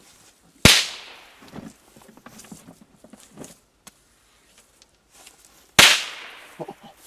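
Two sharp bangs from small Piccolo Corsair firecrackers going off on the ground, about five seconds apart, each ringing out briefly. They are very loud for their size.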